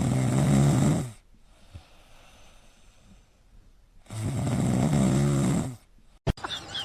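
A sleeping pet snoring: two long snores, each about a second and a half, about three seconds apart, with a short click near the end.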